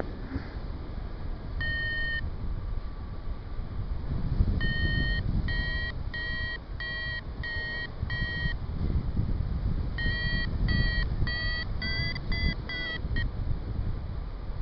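Paragliding variometer beeping its climb tone: a single beep, then runs of short beeps about two a second, which near the end come faster and step up in pitch as the lift gets stronger. Wind rumble on the microphone runs underneath.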